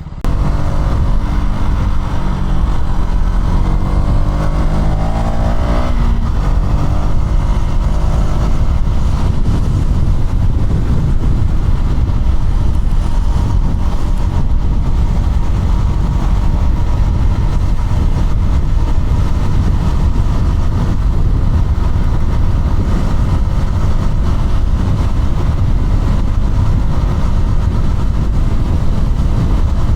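KTM Duke 200's single-cylinder engine accelerating, its pitch rising over the first six seconds, then running at a steady speed under a heavy rush of wind and road noise.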